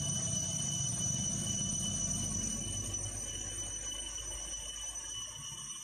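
Steady high-pitched chirring of an insect chorus, several constant pitches held together, over a low rumble that fades about halfway through.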